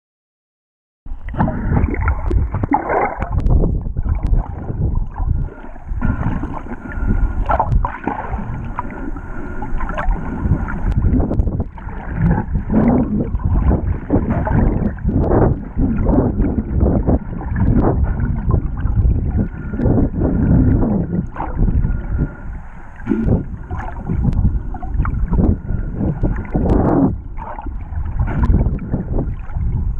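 Water rushing and sloshing over an underwater camera, starting about a second in and going in uneven, muffled surges.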